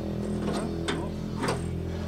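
Background guitar music, with a few sharp metallic clinks as a steel bracket is worked loose from the car's bare core support.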